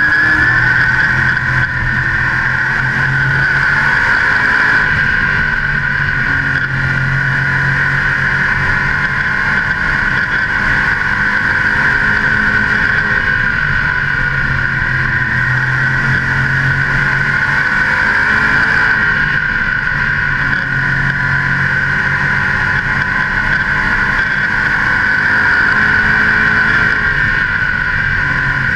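Modified race car's engine running hard at racing speed, heard on board, its pitch rising and falling slowly as the throttle changes through the turns and down the straights.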